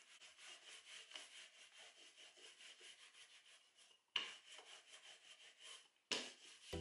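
Wooden rolling pin rolling papri dough out thin on a stone worktop: faint, repeated rubbing strokes, dropping out briefly twice, about four and six seconds in.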